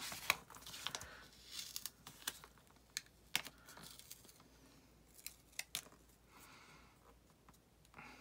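Quiet paper and sticker handling: a sticker peeled off its backing sheet and pressed and smoothed onto a planner page, with scattered light taps and soft rustles.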